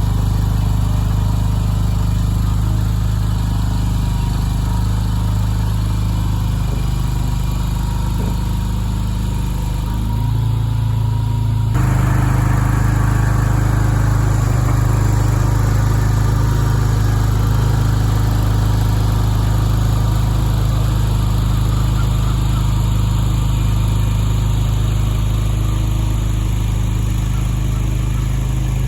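Skid steer engine running steadily; about twelve seconds in it speeds up sharply and holds at the higher speed, as when the machine is put to work.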